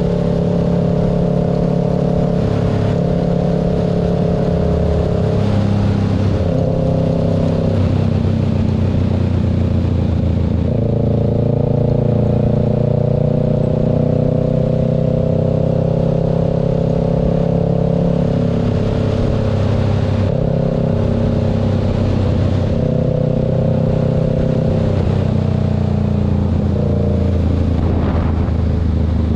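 Motorcycle engine running at road speed with the rush of wind and road noise. Its pitch steps up and down every few seconds with throttle changes and slowly rises for several seconds near the middle.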